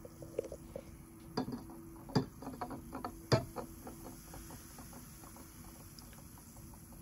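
Carbonated cola and root beer fizzing around rusty metal tools standing in glasses: a fine crackle of bursting bubbles. It is busiest in the first half, with a few sharper clicks, then thins out.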